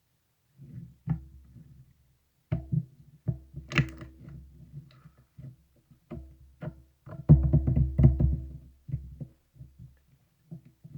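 Marbling slime being squeezed and pressed by hand: irregular sticky clicks and crackling pops over soft low thuds, densest and loudest about seven to nine seconds in.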